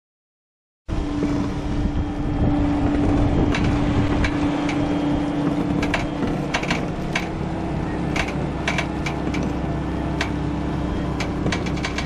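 Case TV450 skid steer running, a steady engine hum over a low rumble, starting abruptly about a second in. Scattered sharp clicks and knocks come in from about three seconds in.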